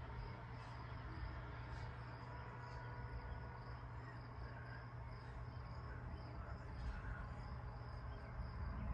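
Crickets trilling in a steady high drone over a low rumble.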